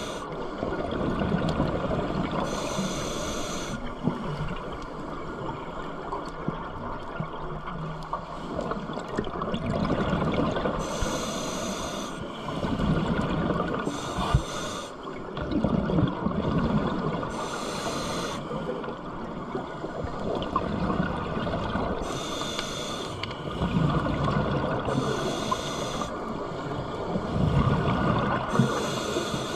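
Scuba diver breathing through a regulator underwater: a hiss with each inhale, then a low gurgling rush of exhaled bubbles, breath after breath at an uneven pace.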